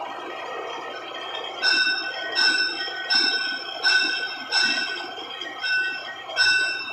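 Metal ringing under repeated hammer blows, roughly one every 0.7 s, starting a little under two seconds in, over a steady background noise.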